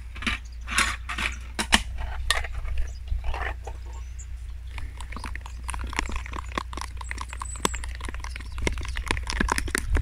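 A metal fork beating thick egg batter in a plastic tub: wet squelching and clicks of the fork against the tub's sides, turning into a fast, steady run of ticks about halfway through.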